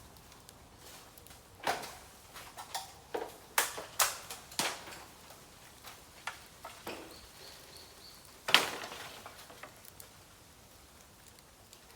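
Bamboo burning in an open fire, crackling with scattered sharp snaps and pops and fainter ticks between them; the loudest pop comes about eight and a half seconds in.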